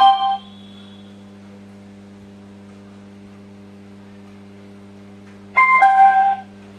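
Steady low mains hum from an amplifier fed by a USB-Bluetooth player module, caused by improper grounding on the amplifier under repair. A short electronic chime sounds at the very start, and another about five and a half seconds in as the phone connects to the module by Bluetooth.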